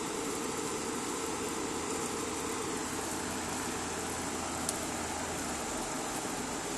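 Steady hum and hiss of an air conditioning unit running, with a single faint tick partway through and a low part of the hum dropping out near the end.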